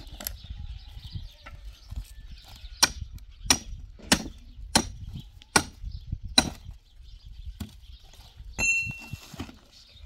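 Six sharp, evenly spaced blows, about one every 0.7 s, each with a short ring after it. A short metallic ring follows near the end.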